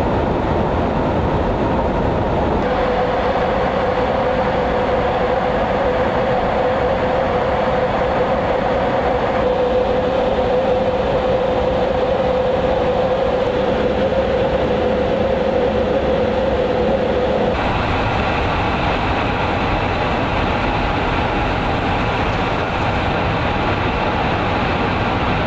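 Steady roar of jet engines and rushing air heard inside a KC-135 Stratotanker in flight. A steady whining tone comes in about three seconds in and drops out about fifteen seconds later, where the character of the noise changes abruptly.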